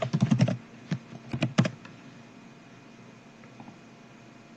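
Computer keyboard keys clicking: a quick run of keystrokes, then a few single clicks, as a command (XLINE) is typed in.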